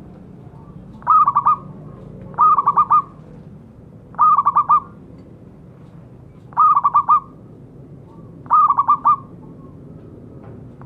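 Zebra dove (perkutut) calling: five short phrases, each a quick run of four or five notes, with pauses of one to two seconds between them.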